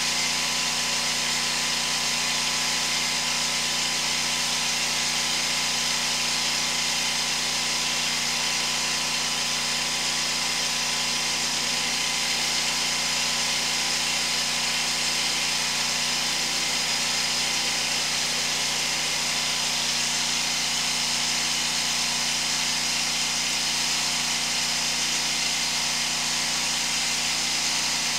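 Sewer hydro-jetter running steadily: a constant machine drone with fixed tones and a high hiss, the engine-driven pump working at pressure while the jet head cuts roots in the sewer main.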